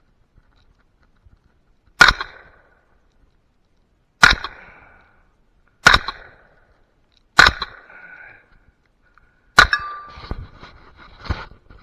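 .300 Blackout rifle firing five shots, one to two seconds apart, each with a short ringing tail. After the fifth shot comes a run of lighter clicks and knocks.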